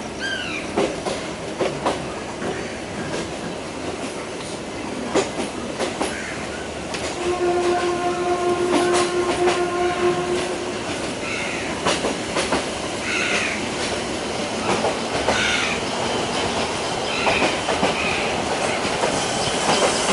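Passenger train of the Yangon Circular Railway running, heard from on board: steady rumble with wheels clacking over the rail joints. A steady pitched tone sounds for about three seconds from about seven seconds in.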